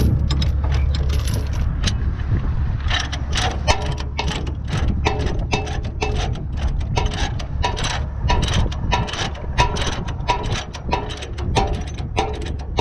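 Ratchet chain binder being cranked to tighten a tie-down chain on a bulldozer: a regular run of metallic ratchet clicks, two to three a second, starting about three seconds in, over a steady low drone.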